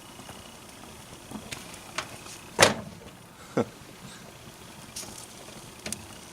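A burning alarm clock and its melting cord popping and crackling inside a microwave: a handful of sharp pops over a steady hum, the loudest about two and a half seconds in, with another strong one a second later.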